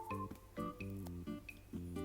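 Background music: a light instrumental track with a steady rhythm of short bass and chord notes.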